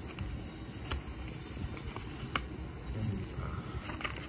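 Hands handling paper cards and stickers: light paper rustling with two sharp taps or clicks, about a second in and again about a second and a half later.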